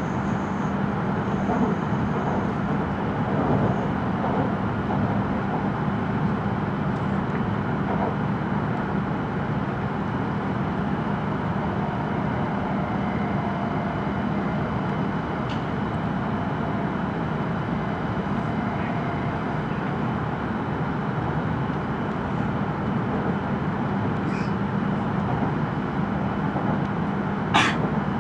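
Steady running noise of an E5 series Shinkansen at speed, heard inside the passenger cabin: an even rumble and rush with a low hum that fades in the middle and returns later. A single sharp click sounds near the end.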